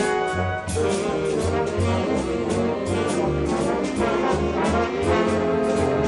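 Big band playing a jazz waltz live: brass and saxophone section over upright bass and drums with cymbal strokes. A held brass chord gives way about half a second in to moving lines, and a new sustained chord comes in near the end.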